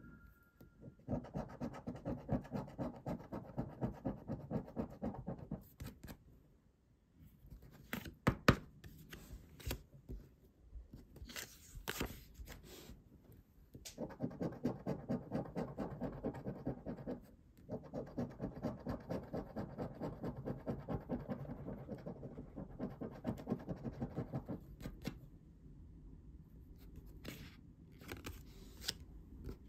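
A coin scratching the coating off a Banco scratch card in quick back-and-forth strokes, about three a second. The scratching comes in runs of a few seconds with short pauses, and a few sharp clicks fall in between.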